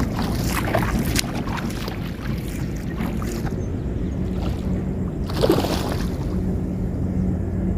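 Steady wind rumble on the microphone, with splashing from a hooked fish thrashing at the water's surface. The loudest splash comes about five and a half seconds in.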